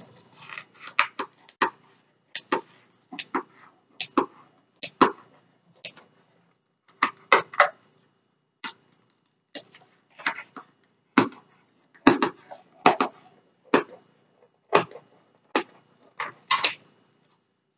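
Kitchen scissors cutting through a baked pizza's crust: a run of short, sharp snips at irregular intervals, about one or two a second, stopping shortly before the end.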